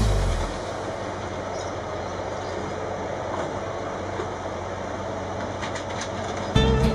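Rail vehicle running along the track: a steady rumbling, rattling noise with a few faint clicks near the end.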